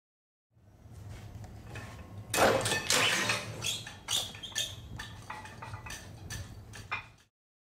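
A drop test of a self-retracting lifeline: a low steady hum, then about two and a half seconds in a sudden loud clatter as the 282 lb steel test weight falls over the steel edge and is caught. Irregular metallic clanks and rattles from the swinging weight follow until the sound cuts off.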